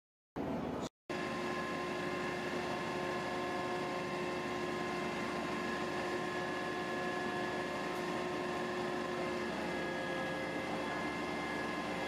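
IVECO Magirus aerial ladder truck running with its ladder raised: a steady mechanical drone with several held whining tones, starting about a second in.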